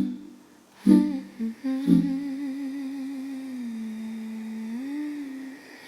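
A voice humming a slow melody over plucked string chords, three struck about a second apart, then one long hummed note that dips and rises again.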